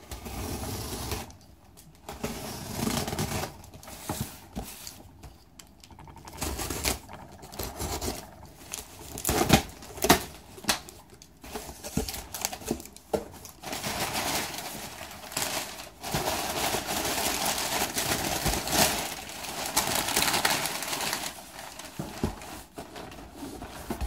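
A cardboard shipping box being opened by hand: flaps bending, cardboard rustling and scraping in irregular bursts, with a few sharp knocks and clicks.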